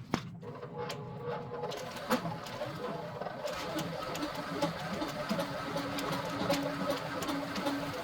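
Electric drill motor running steadily, turning a spool to rewind MIG welding wire on a homemade jig, with scattered sharp clicks and ticks throughout.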